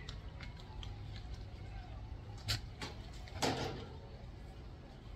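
Tools being handled: two sharp clicks about halfway through, then a short, louder clatter of small hard objects, over a low steady hum.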